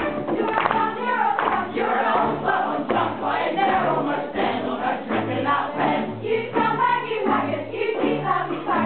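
A school choir of teenagers singing together with a folk-style ensemble of violins, cellos, acoustic guitars and ukuleles, over a steady line of low bass notes.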